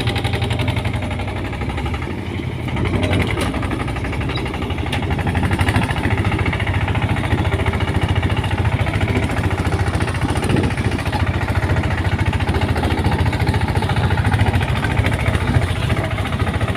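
A farm machine's engine running steadily with a fast, even firing pulse; it gets a little louder about two and a half seconds in.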